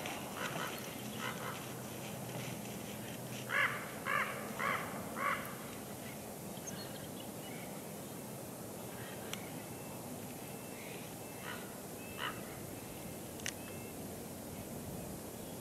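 A bird calls four times in quick succession, about half a second apart, followed later by fainter, scattered bird calls and chirps.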